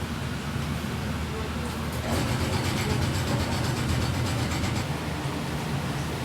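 An engine running steadily with a low hum, growing a little louder and busier about two seconds in, over background street noise.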